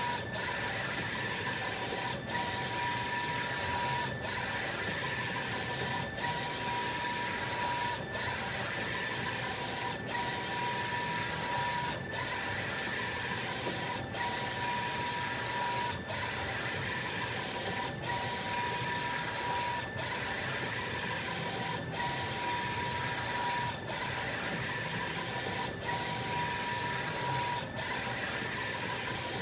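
Wide-format inkjet printer printing on sticker vinyl: a steady mechanical hiss with a thin whine, broken by a short dip about every two seconds as the print-head carriage finishes each pass.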